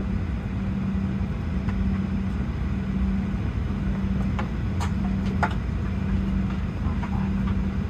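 Steady cabin hum of a Boeing 737-700 parked at the gate, with a steady low tone under a low rumble, and a few faint clicks about halfway through.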